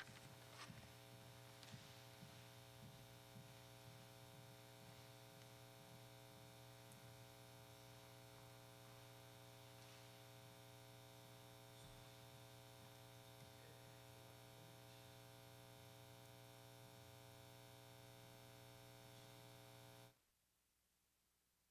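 Faint, steady electrical hum with several overtones. It cuts off abruptly near the end, leaving near silence.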